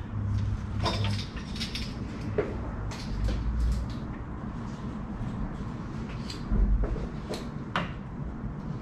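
Screwdriver prying at the gear shift shaft seal in a BMW Getrag 420G transmission case: scattered small metal clicks and scrapes, with two dull low thumps, about three seconds in and about six and a half seconds in.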